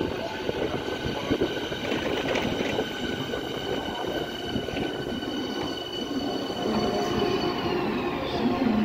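Berlin S-Bahn electric train running past close by: rumbling wheel noise with several steady high whining tones. Near the end the whine glides down in pitch as a train slows.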